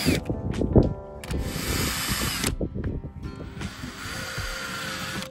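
Cordless drill boring through a winch's base mounting holes into the teak winch pad and deck. After a few knocks in the first second, it runs twice: once for about a second, then for about a second and a half.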